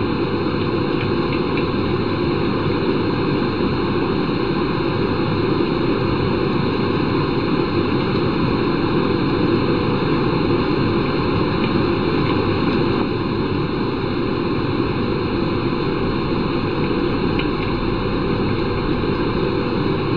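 Domestic cat purring steadily and loudly, close to the microphone, as it is scratched under the chin and on the cheek.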